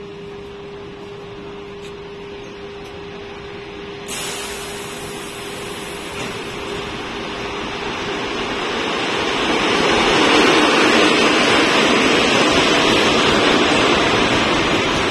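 EP2K electric locomotive hauling a passenger train through a station at speed. The rushing noise of wheels on rails grows louder over about six seconds, then stays loud as the coaches pass. A steady hum fades out during the first few seconds.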